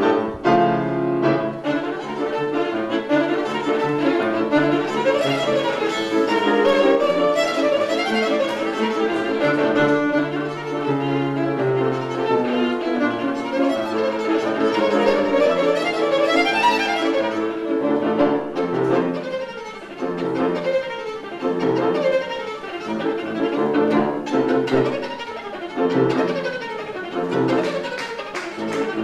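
Violin playing classical music, fast and virtuosic, with running passages that turn into quick descending runs repeated again and again in the second half.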